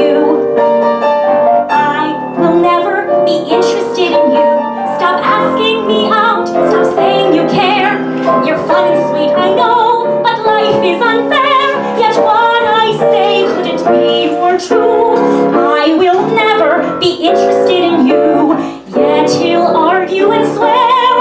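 A woman singing a song into a handheld microphone, her voice wavering with vibrato on held notes, over piano accompaniment.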